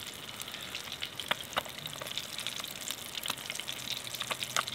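Hot cooking oil frying in a pan on a camp-stove burner: a steady sizzle with frequent small pops and crackles.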